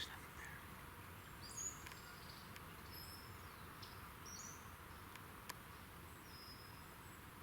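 Faint, scattered chirps and short whistles of distant songbirds over a quiet outdoor hiss, with a single sharp click about five and a half seconds in.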